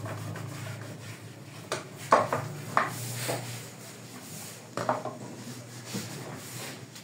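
Cleaning a wooden barber's trolley: a cloth rubbing and wiping its shelves, with several short knocks and clinks as its parts and the small bowls in it are bumped. A steady low hum runs underneath.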